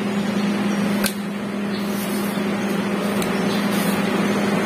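Electric meat grinder motor humming steadily on a low tone, with a sharp click about a second in and another at the end.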